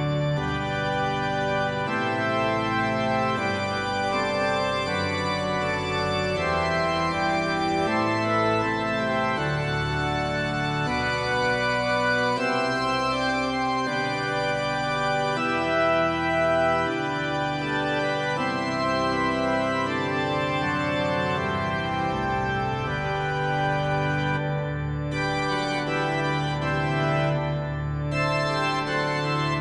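Organ prelude: slow, sustained chords that change about every second, with a long held low note in the last several seconds.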